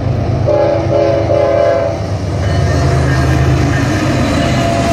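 Norfolk Southern freight train's diesel locomotives passing close, their air horn sounding a chord about half a second in for roughly a second and a half, with short breaks, as the warning for the grade crossing. A steady low engine rumble continues under and after the horn.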